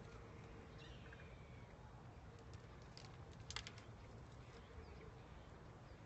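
Faint, scattered chirps from a flock of birds roosting in a palm tree, with a brief cluster of short sharp chirps about halfway through.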